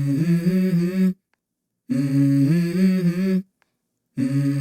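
Background music: a short hummed vocal phrase in two-part harmony, stepping up in pitch partway through, repeated with brief silent gaps between.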